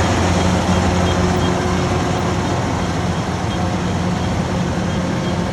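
Rice combine harvester running steadily in the field, a continuous engine hum under broad machinery noise.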